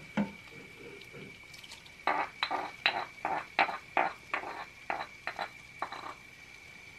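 Stone molcajete being emptied into a clay cazuela, the ground tomato and chile salsa scraped and knocked out of it: one knock, then about a dozen sharp clinks and knocks at roughly three a second.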